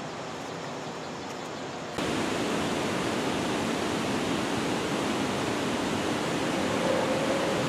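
Steady rush of water pouring over a low river dam, coming in suddenly about two seconds in. Before that there is only a quieter, even background hiss.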